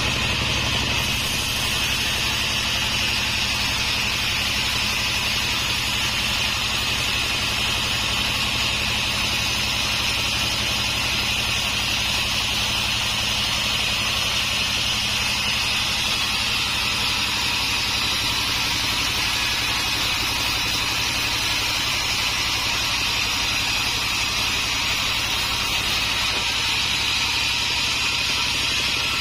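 Homemade sawmill running steadily: a constant high whine over a low motor hum, with no let-up.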